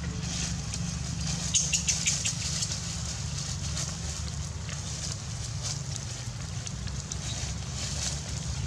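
Dry leaf litter crackling and rustling in short scattered bursts as monkeys shift about on it, thickest about a second and a half in, over a steady low hum.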